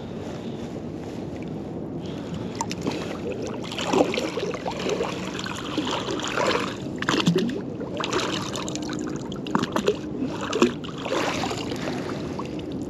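Splashing and dripping water with scattered small knocks as a fishing magnet on a rope is hauled in through muddy shallows and lifted out of the water. For the first two seconds there is only a steady rush of wind and water.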